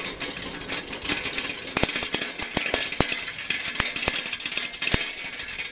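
Irregular sharp clicks and rattles over a steady high hiss, from moving along through grass.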